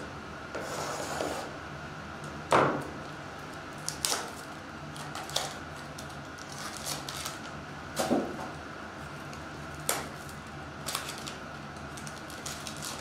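Star Wars Masterwork card boxes being opened and handled by hand, with silver foil packs slid out: a brief rustle, then scattered sharp taps, scrapes and crinkles, the loudest about two and a half seconds in.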